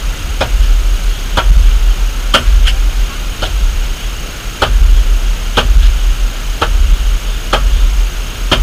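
A carpenter's hand tool striking wood about once a second, a short sharp knock each time, over a steady low rumble.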